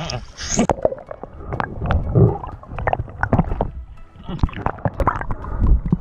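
Water sloshing and gurgling around a half-submerged action camera, with irregular knocks and splashes as it bobs at the surface and dips under.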